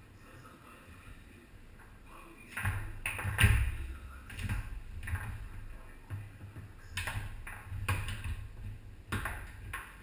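Tornado foosball table in play: the ball clacking off the player figures and table walls, with rods knocking and thudding. A quiet start, then a fast run of sharp knocks from about two and a half seconds in, the loudest hit soon after.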